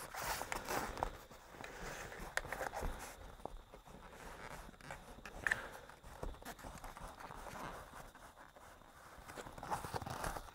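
Faint rustling and scuffing of new pop-up camper canvas being handled and fed along the rail channel, with a few small clicks and ticks.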